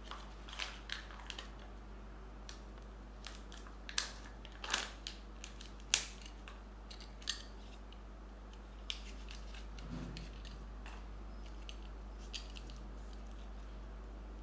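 Hands handling hard plastic Kinder Joy egg shells and a toy capsule: scattered sharp clicks and crackles, the loudest about six seconds in, with a soft low thump about ten seconds in, over a faint steady low hum.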